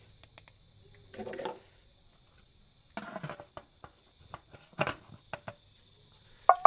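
A spoon and a plastic ladle clinking and scraping against a ceramic soup bowl while broth is served: scattered light clicks and knocks, with a sharper knock about five seconds in.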